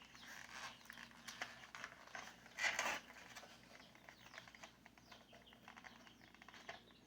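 Quiet rustling, scraping and small clicks of hands loosening damp potting soil and handling plastic seedling cups while tomato seedlings are pulled out. A louder, brief scrape comes near three seconds in.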